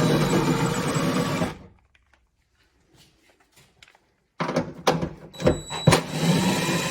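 Cordless 1/4-inch impact driver running 10 mm nuts off, a steady motor whine with a rapid rattle, for about a second and a half. After a pause come a few sharp clicks and knocks of the socket and nuts, then the driver runs again near the end.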